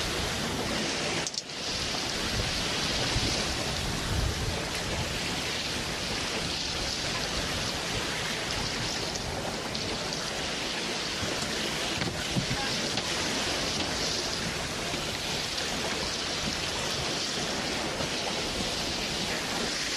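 Steady sea ambience of waves washing, with wind, swelling gently now and then. It briefly cuts out about a second in.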